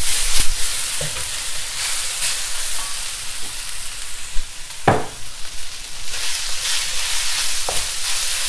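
Fried rice sizzling steadily in a hot wok as it is stir-fried with a wooden spatula, which scrapes through the rice and now and then knocks against the wok, most sharply about halfway through.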